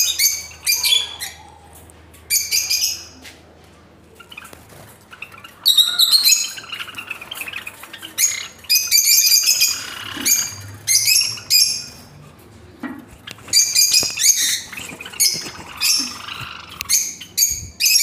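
Peach-faced lovebirds calling: loud, shrill screeching chirps in repeated bursts, with a short lull about four seconds in.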